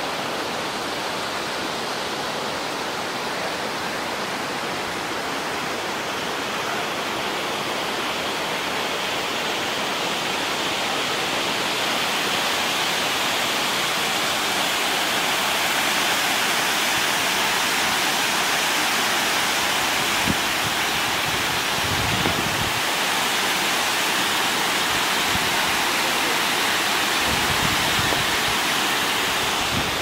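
Water pouring over a low weir and running through a rocky river bed: a steady rush that grows louder toward the middle. A few low bumps come near the end.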